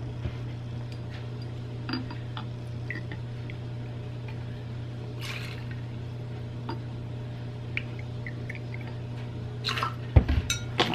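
Juice poured from a bottle into a small glass jigger and then into a stainless-steel cocktail shaker: a brief pouring hiss about five seconds in, with light glass clinks and taps, the loudest clustered near the end. A steady low hum runs underneath.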